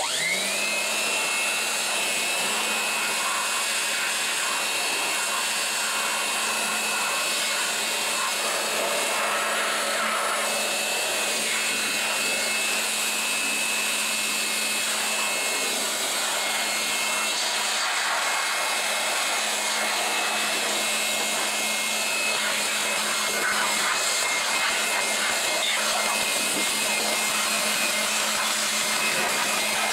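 Handheld electric dust blower switched on: its motor spins up in the first moment, then runs steadily with a high whine over rushing air as it blows leftover water out of a washed car engine bay.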